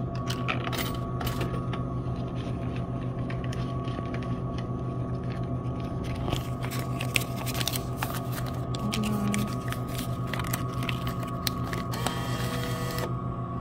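Dixie Narco vending machine with a steady electrical hum, under scattered clicks and rattles as coins are fed into its coin slot. About twelve seconds in, the bill acceptor's motor whirs for about a second as it pulls in a dollar bill.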